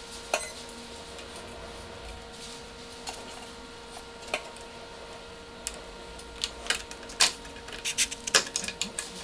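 Small metallic clicks and taps of screws and washers being handled and fitted to a metal motor bracket. A few scattered clicks come first, then quick runs of clicking over the last few seconds, over a faint steady hum.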